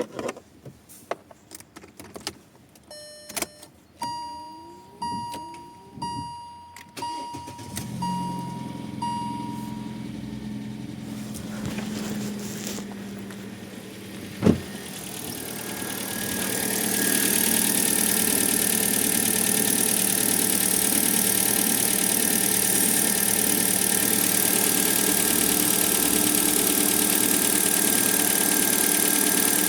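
A few clicks, then a row of about six short electronic beeps about once a second. From about halfway through, the 4th-generation Kia Rio's engine is started and settles into a steady cold idle with a hiss near the throttle body. By the owner's ear it is so far free of the intake whistle it was being repaired for.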